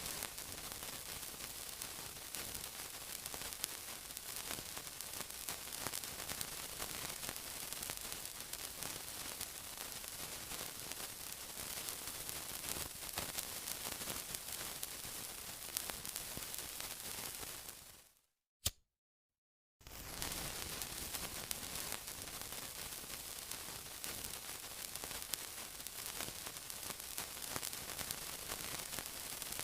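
Continuous sizzling: a steady hiss with fine crackles. About eighteen seconds in it fades out, a single click sounds, and after about a second and a half of silence the sizzling starts again.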